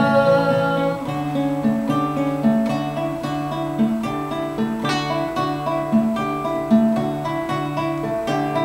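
Acoustic guitar playing alone in a steady rhythm, a plucked bass line moving under picked and strummed chords, between sung verses.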